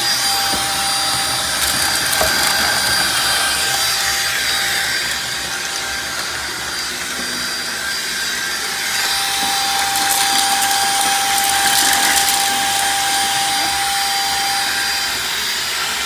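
Shark vacuum cleaner running steadily, its motor whining under a steady rush of suction, with scattered crackles of debris being sucked up, thickest a few seconds past the middle.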